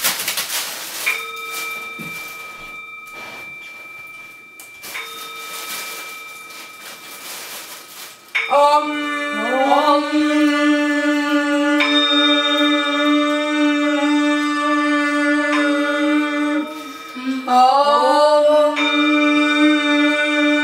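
A bell struck twice, each stroke ringing on and slowly fading. From about eight seconds in, a choir sings long held notes in church style, with the bell still ringing under the voices.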